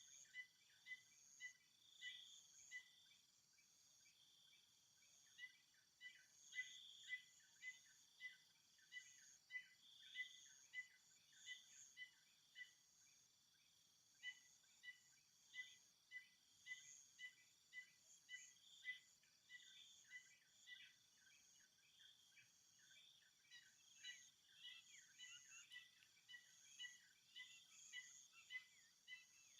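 Faint outdoor ambience of insects: a steady high drone with a short chirp repeating about twice a second.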